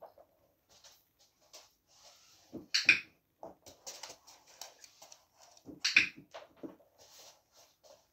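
A dog moving about on a rug and laminate floor, its paws and claws making scattered ticks and scuffs. Two loud, sharp clicks come about three seconds apart.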